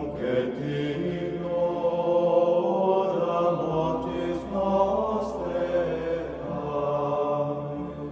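Slow chanted vocal music with long held notes, beginning to fade out near the end.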